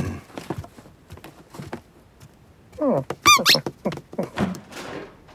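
Cartoon cat sound effects: soft paw taps and small clicks. About three seconds in comes a rising, voiced cat-like chirrup, then a short, high squeak.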